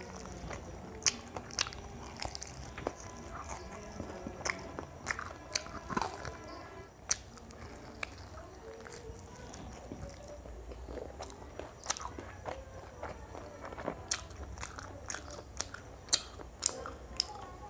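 A person biting and chewing crispy fried chicken: crunching of the fried coating and wet mouth sounds, with many sharp crackles, thickest near the end.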